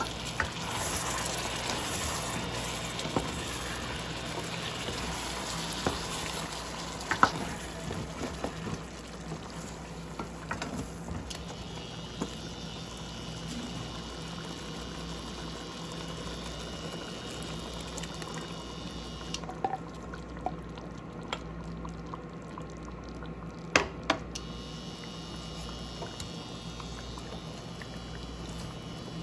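Pot of chicken adobo on the heat: liquid goes in with a louder sizzle over the first few seconds, then settles into a steady, quieter sizzling simmer. A couple of sharp knocks stand out.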